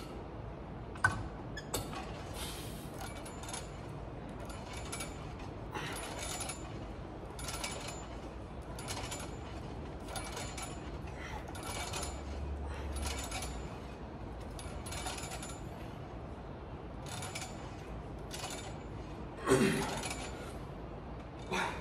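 Arm-curl machine worked through a set of repetitions: the cam, pulley and weight stack give a repeated rush and rattle about every second or so, with a few metal clicks and clinks and a louder burst near the end.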